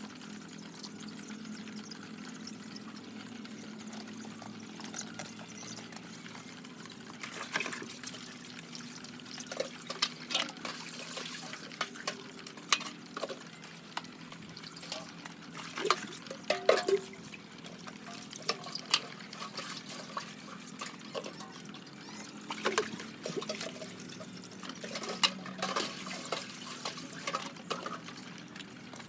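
Water pouring and trickling over a steady low hum, with scattered clicks and knocks from about seven seconds in.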